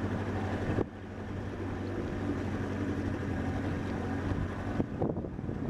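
Small boat's outboard motor running steadily as the boat moves along, with wind noise on the microphone. The sound drops a little in level about a second in.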